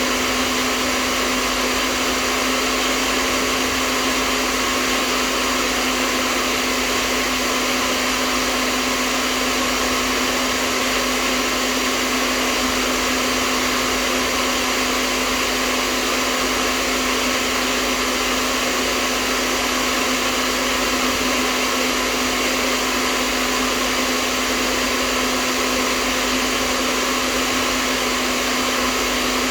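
Electric hairdryer running continuously at a constant speed: a steady, unchanging hiss of rushing air with a steady motor hum.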